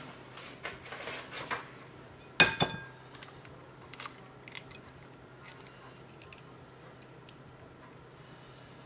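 An egg knocked twice, sharply, on the rim of a mixing bowl to crack it, with a brief ring from the bowl, about two and a half seconds in. Faint small clicks follow as the shell halves are worked to separate the yolk from the white.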